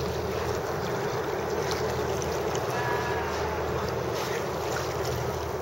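Steady wind on the microphone mixed with choppy water lapping around a kayak.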